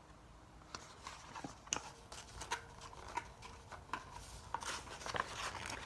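Faint clicks and rustles of a paper picture book being handled, its page turned.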